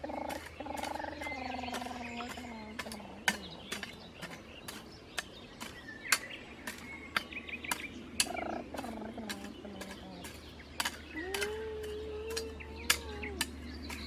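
A hand hoe chopping into garden soil to cut out weeds, as a string of sharp, irregular strikes about two or three a second. A low voice comes in now and then.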